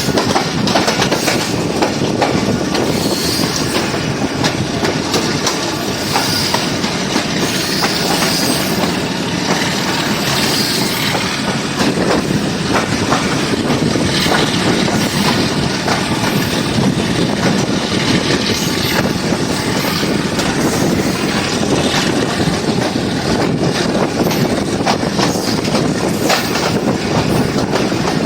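Passenger express train running at speed: a steady rumble of wheels on rail with a clatter of clicks over the rail joints and a faint squeal of wheels.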